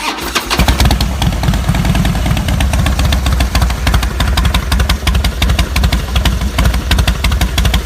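A Harley-Davidson Softail's Twin Cam 96 V-twin engine running, loud and steady with a rapid pulsing beat.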